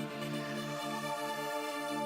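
Background music: a held synthesizer chord over a bass line that changes note every half second or so.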